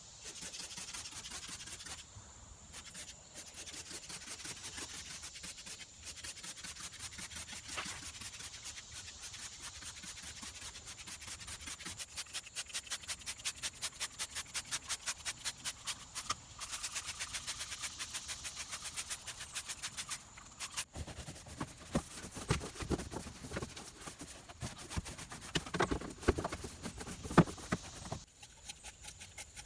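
A stiff brush scrubbing a car wheel in quick, even back-and-forth strokes, about four or five a second. In the last third the strokes turn heavier and irregular, with a few louder knocks.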